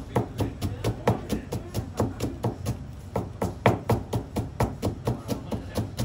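Kitchen knife finely shredding a white vegetable on a cutting board, the blade knocking the board about four times a second in an even rhythm.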